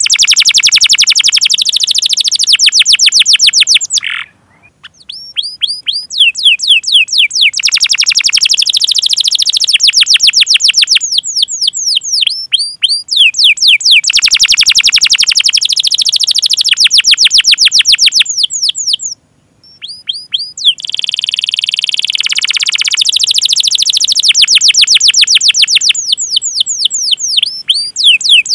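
Domestic canary singing a long, loud song: fast runs of repeated falling 'cuit cuit' notes and rolling trills, broken by two brief pauses.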